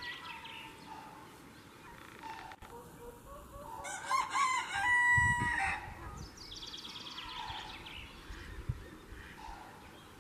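A rooster crows once, about four seconds in, its call ending on a held note; this is the loudest sound. Small birds chirp in quick high bursts before and after it.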